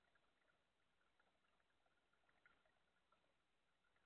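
Near silence, with faint scattered small ticks.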